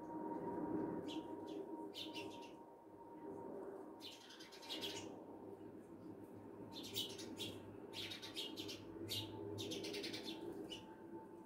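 House sparrows chattering: several bursts of rapid, high chirps with short gaps between them, over a steady low background hum.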